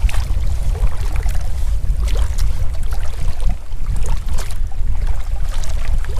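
Wind buffeting the microphone in a steady, loud rumble, with water sloshing and splashing around legs wading through shallow water.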